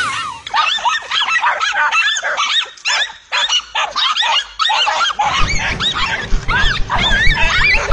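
A pack of dogs barking and yelping excitedly as they mob their quarry, many quick high yelps overlapping. About five seconds in, a low rumbling noise joins them.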